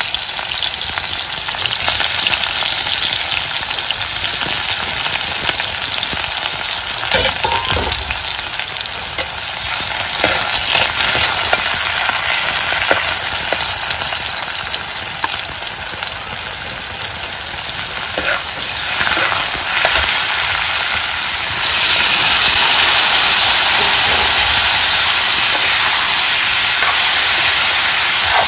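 Sliced onions sizzling in hot oil in an iron kadai, with a spatula scraping and clicking against the pan now and then. About three quarters of the way in the sizzle turns suddenly louder and hissier, as raw pork pieces go into the hot oil.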